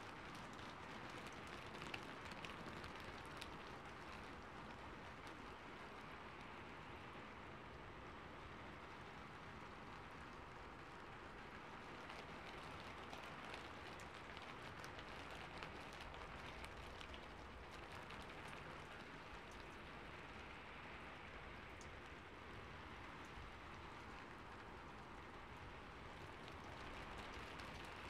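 Calm, steady rain ambience, soft and even, with faint scattered drop ticks.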